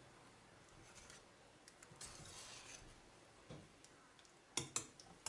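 Faint scraping and squelching of a wire hand whisk stirring thick chocolate pudding cream in a stainless steel pot, with a few soft ticks and a couple of sharper clicks near the end.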